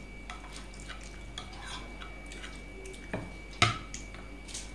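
Light clinks and scrapes of a spoon and ceramic serving bowl against a steel dinner plate as curry is served onto rice and mixed by hand. One sharp clink comes about three and a half seconds in.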